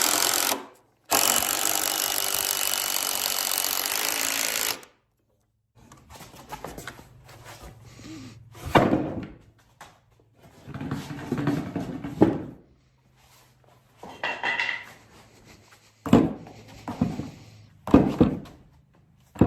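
Power drill driving screws into wood: a short burst near the start, then a steady run of about four seconds. After that come scattered knocks, thuds and rustling as the wood and tools are handled.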